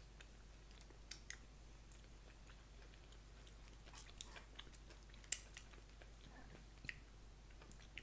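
Faint chewing and mouth clicks of people eating, with a scattered handful of light clicks; the sharpest comes about five seconds in.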